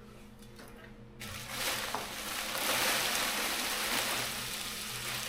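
Plastic packaging wrap rustling and crinkling as it is handled and pulled off, starting about a second in and continuing.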